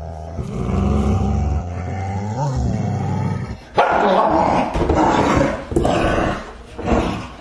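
A dog growling low and steady. About halfway through it breaks into loud, harsh snarls and barks that come in a string of bursts.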